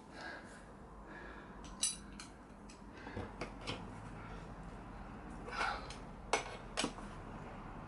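Scattered metal clinks and knocks of a tyre lever against a motorbike wheel rim, about seven sharp ones spread through, as a stubborn old tyre bead is levered off.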